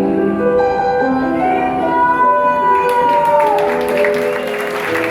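Live song reaching its end: a long high held note over sustained accompaniment, falling away near the end. Audience applause breaks in about three seconds in and swells.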